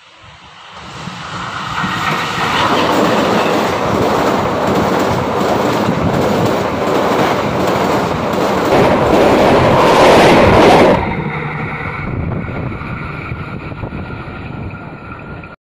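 An Indonesian KAI passenger train, a diesel locomotive hauling coaches, approaching and passing close by on a steel girder railway bridge, its wheels rumbling and clacking over the rails. The sound builds over the first two seconds, is loudest around ten seconds in, and drops suddenly about eleven seconds in to a quieter rumble.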